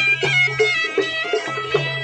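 Live folk music: a reedy wind instrument plays a wavering melody over a steady low drone, while a barrel drum beaten by hand keeps a quick, even beat.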